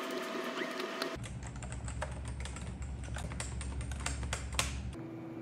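Typing on a computer keyboard: a quick, irregular run of key clicks over a low hum, starting about a second in and stopping shortly before the end.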